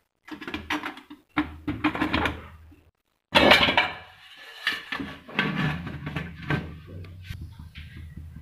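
Aluminium idli stand and steamer pot clattering and knocking as the batter-filled plates are set into the steamer and the lid goes on, with the loudest metal clank about three seconds in.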